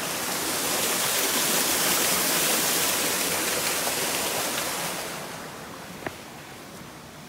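Water of a rocky stream rushing over stones, a steady hiss that fades away about five seconds in.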